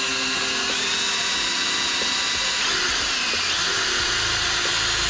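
Cordless drill running steadily with a high whine as its bit bores through a car's taped trunk lid; a deeper rumble joins about four seconds in.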